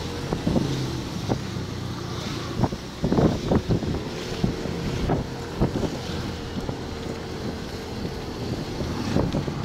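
Wind buffeting the microphone on a moving motorcycle, over the low steady running of the engine and the road, with irregular gusty thumps, a cluster of them about three seconds in.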